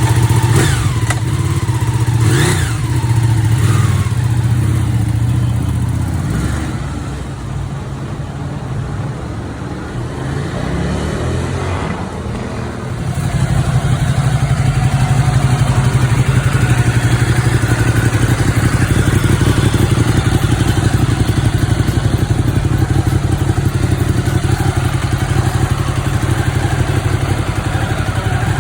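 Ducati 959 Panigale's Superquadro V-twin engine running after work to cure an engine knock. It runs steadily at first, drops in level for several seconds with its pitch wavering, then runs louder and steadily again from about halfway through.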